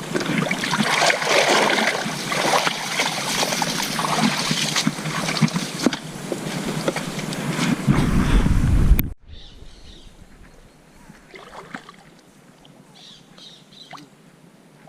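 Rushing river water, a loud steady wash with small clicks, then a sudden cut about nine seconds in to a much quieter stretch with faint high chirps and light clicks.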